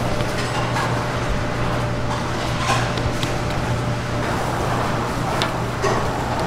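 Metal tongs clicking a few times against a steel griddle as raw pork belly slices are laid down, over a steady low hum and background noise.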